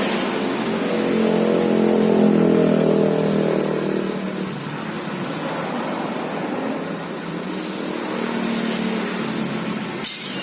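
Car engine running, swelling to a higher speed about a second in, easing back after about four seconds and picking up again near the end, with a sharp click just before the end.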